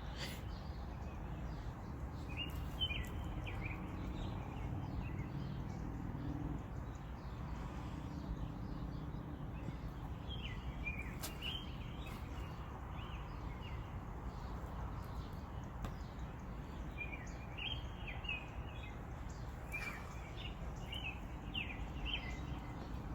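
Small birds chirping in short clusters of calls, over a steady low background rumble.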